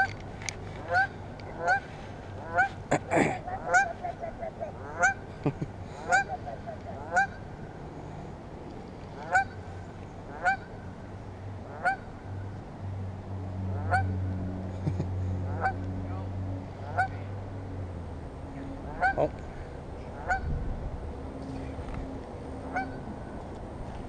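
A goose honking again and again, single short calls about a second apart, thicker in the first several seconds and more spread out later.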